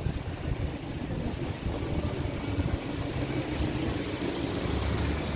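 Road traffic with wind buffeting the microphone: a steady low rumble that rises and falls unevenly.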